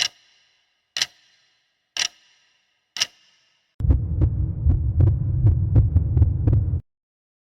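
Edited sound effect: sharp ringing ticks once a second, four times, then a loud low rumble with quick ticks about four a second for some three seconds that cuts off suddenly.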